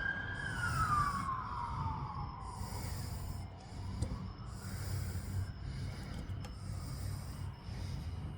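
A siren's wail falls in pitch and fades away over the first two seconds, above a steady low rumble. After it, soft hissing rushes come back about once a second.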